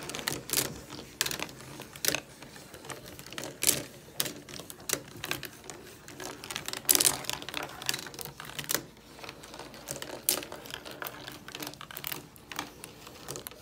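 Steel marbles clicking and clattering through a laser-cut wooden marble-run kit as its wooden gears and ball lift turn: many irregular sharp clicks, some much louder than others.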